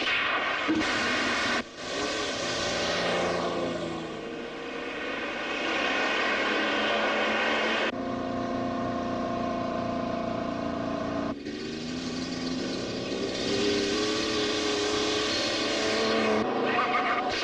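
Car engines revving and running hard, their pitch rising and falling, with a steadier stretch in the middle and several abrupt changes where the sound cuts from one shot to the next.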